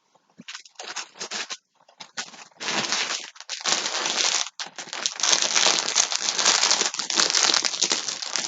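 Plastic bag of yarn skeins being handled and crinkled, at first in short bursts, then continuously from about two and a half seconds in.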